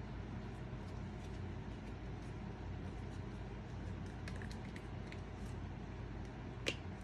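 Faint clicks and rubbing of a rubber seal being worked onto a metal vent window frame by hand, with a cluster of small clicks about four seconds in and one sharper click near the end, over a steady low background hum.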